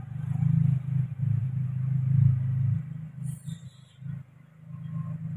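Low, steady rumble of an engine running, which eases off between about three and five seconds in and then returns.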